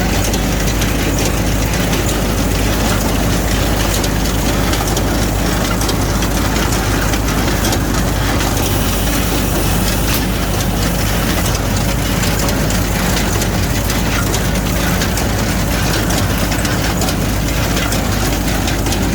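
A hay baler at work with the engine that drives it, a loud, steady mechanical running with no pauses.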